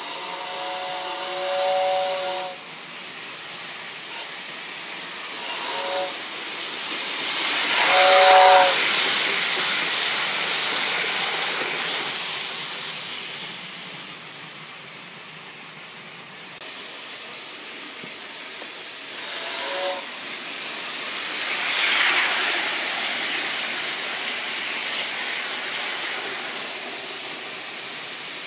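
Lionel O-gauge model train running on its track: the locomotive's electronic horn sounds a chord in a long blast at the start and three short blasts later, and the noise of the wheels and motors swells loudly twice as the train passes close by.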